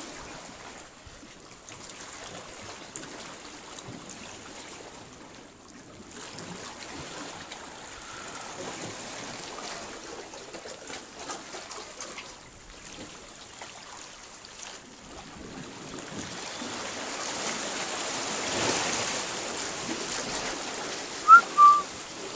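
Sea water washing and lapping in a narrow rock channel, a steady noisy wash that grows louder in the last third. Two short high chirps near the end.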